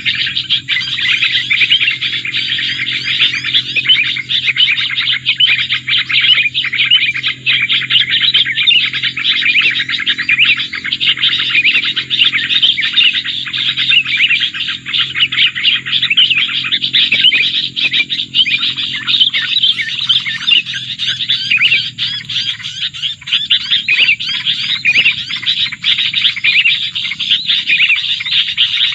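Dense, continuous, rapid bird chirping and twittering at a loud, steady level, with a low steady hum underneath that fades about two-thirds of the way through.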